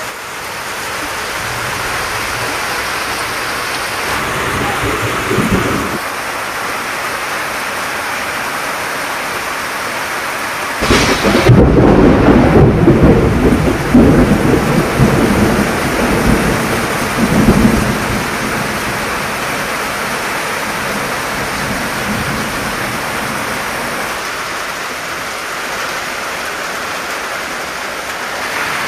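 Heavy rain pouring steadily, with a loud rumble of thunder starting about eleven seconds in and rolling on for several seconds.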